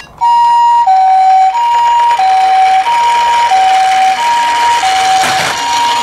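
Toy ambulance's electronic two-tone siren, switched on from a button on its roof, alternating steadily between a high and a low note, each held about two-thirds of a second, in the Japanese ambulance 'pee-po' pattern. A brief rushing noise joins it near the end.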